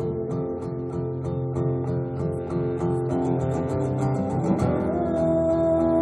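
Live band playing an instrumental passage, led by rhythmic acoustic guitar strumming. About four and a half seconds in, a held melodic note slides up and sustains.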